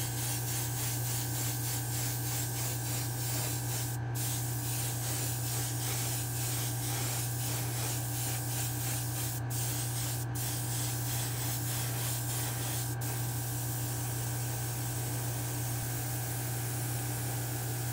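Airbrush spraying paint, a hiss that pulses regularly, over a steady low hum. The pulsing stops about thirteen seconds in, leaving a smoother hiss and the hum.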